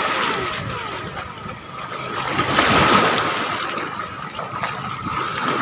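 Small lake waves washing and splashing against a shore strewn with driftwood and bamboo, swelling about halfway through and then easing.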